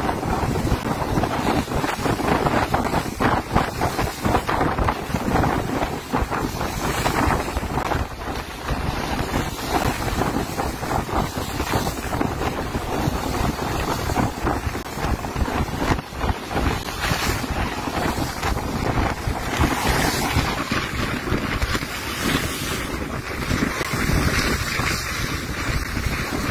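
Strong wind buffeting the microphone over the wash of open sea around a boat, a dense, gusting rush.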